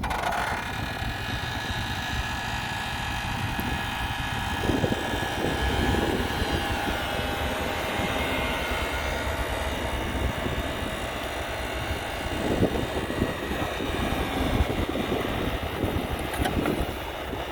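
Heavy diesel construction machinery running steadily, a deep engine rumble with a high mechanical whine over it.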